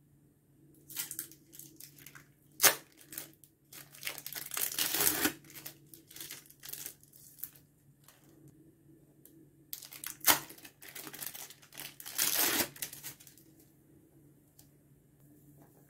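Plastic bag and paper sachet being handled and torn open: several bursts of crinkling and tearing, with a couple of sharp clicks.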